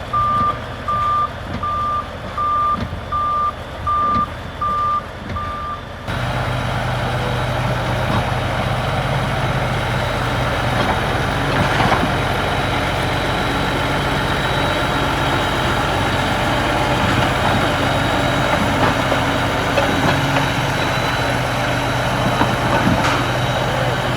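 Bulldozer's reversing alarm beeping steadily, about one and a half beeps a second, over its diesel engine. About six seconds in the beeping stops and the engine runs louder and steady under load as the machine works the trash.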